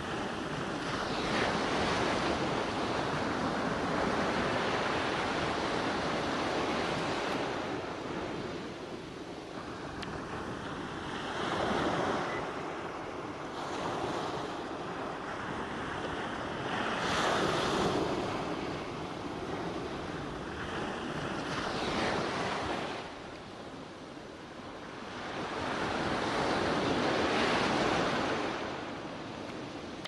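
Ocean waves washing onto a shore, the surf swelling and ebbing in slow, uneven surges a few seconds apart.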